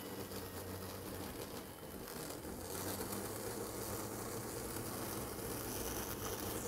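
HO scale diesel locomotive's electric motor running with its wheels spinning in place on an alcohol-soaked paper towel, scrubbing dirt off the wheel treads of a locomotive that has been running finicky. A steady whir that grows a little louder about three seconds in.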